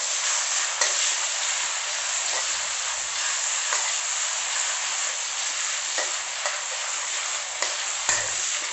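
Ground chili, shallot, garlic and shrimp-paste spice paste sizzling in hot oil in a wok, with a steady hiss. A metal spatula scrapes and taps against the pan every second or so as the paste is stir-fried.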